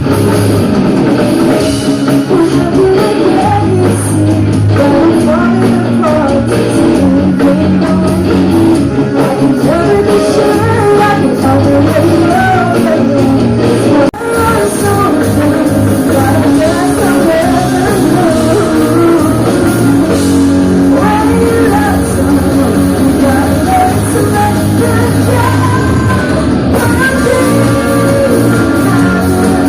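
Live pop-rock band playing a song with a lead vocal over electric guitar, bass and drums. A momentary drop-out about fourteen seconds in.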